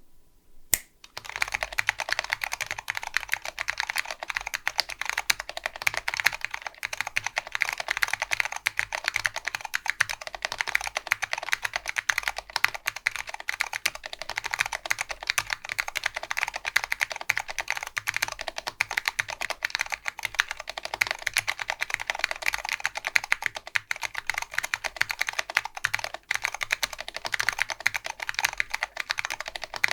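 Continuous fast typing on a mechanical keyboard with new old stock Alps SKCM Brown switches, a POM plate and vintage typewriter keycaps: a dense stream of key clicks that starts about a second in.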